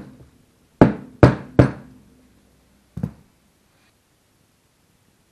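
Hard knocks of metal engine parts being set down and handled on a workbench: three in quick succession about a second in and a fainter one near three seconds, each with a short ring.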